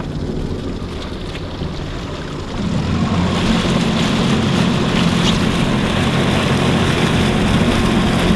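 Outboard motor on a small workboat running under load while it turns a wide catamaran hull, throttled up about two and a half seconds in and running louder and steady after that.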